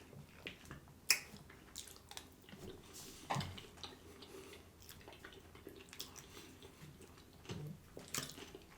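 Close-up eating sounds: a person chewing food, with scattered mouth and utensil clicks, the sharpest about a second in.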